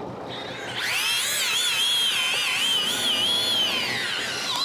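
Fishing reel whining under heavy load from a large amberjack pulling hard on the line. The whine starts about a second in, wavers in pitch, and sags near the end.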